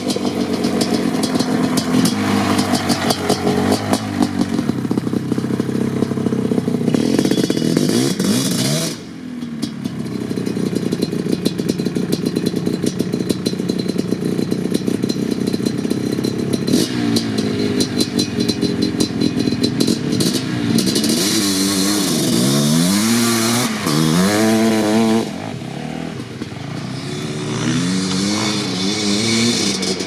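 Suzuki LT500R Quadzilla's 500 cc single-cylinder two-stroke engine, fitted with an FMF Fatty pipe and Powercore silencer, revving hard under load as the quad slides sideways, with the tyres spraying gravel. The throttle drops off briefly about nine seconds in, and later the rider blips it on and off so the pitch swings up and down in quick waves several times.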